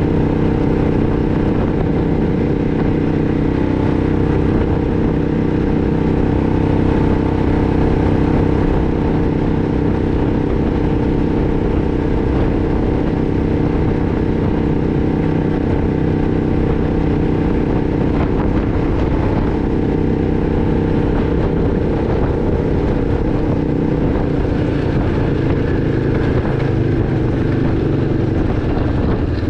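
Single-cylinder engine of a 2006 Arctic Cat 500 ATV running under way at a steady pace, its pitch holding nearly constant.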